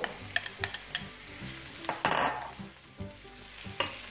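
Flaked salt cod going into a frying pan of onions softened in olive oil, sizzling, with several light clicks of the spatula against the glass bowl and the pan and a louder rush of sound about two seconds in.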